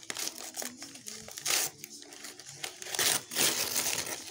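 Paper and plastic packaging crinkling and rustling as a present is unwrapped, in irregular bursts, loudest about a second and a half in and again around three seconds in.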